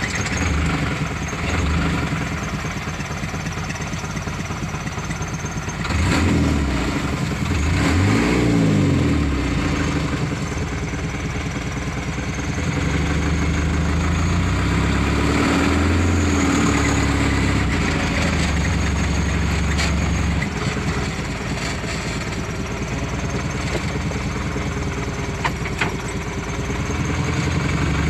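Truck engine running, heard from inside the cab while driving over rough dirt ground, revving up and easing back down twice.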